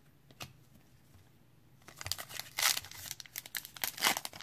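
Foil wrapper of a 2018 Panini Classics football trading-card pack being torn open and crinkled by hand, starting about two seconds in after a quiet stretch.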